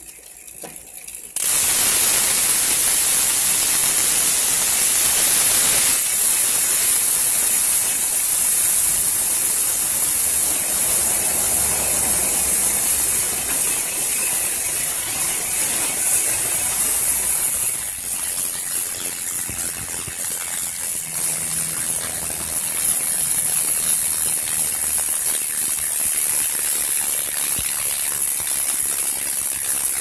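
Novatec D742SB rear freehub ratcheting as the wheel spins freely: the pawls click so fast that they merge into a loud, high buzz, the 'cricket' freehub sound. It starts suddenly about a second and a half in.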